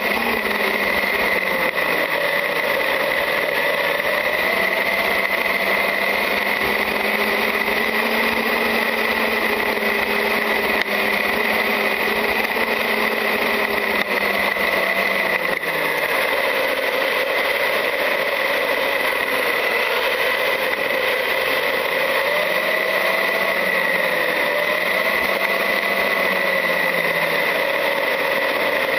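Traxxas UDR RC truck's brushless electric motor and drivetrain running, heard from onboard, with a steady high whine and a lower tone that rises and falls as the truck speeds up and slows down, over constant rumble from the tyres on grass and gravel.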